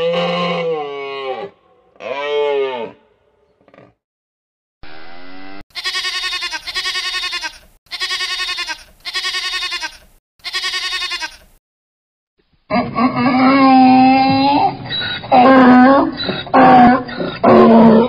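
A calf bawls twice. Then a sheep bleats about five times in quick succession, and a horse neighs loudly for several seconds, the neigh breaking into shorter calls near the end.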